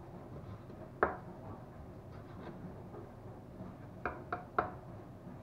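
Kitchen knife knocking on a wooden cutting board while cutting beef heart: one sharp knock about a second in, then three quick knocks near the end.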